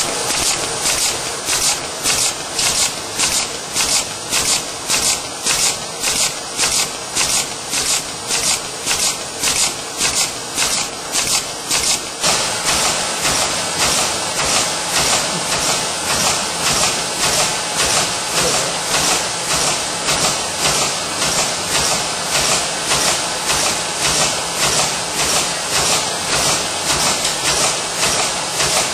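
Automated machine for making small printed flags on sticks running in a fast, even cycle: a rhythmic hiss and clatter repeating about two to three times a second, changing slightly in character about twelve seconds in.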